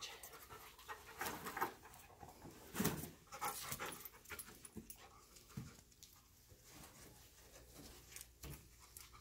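A detection dog panting and sniffing as it searches around cardboard boxes, with scattered light rustles and knocks.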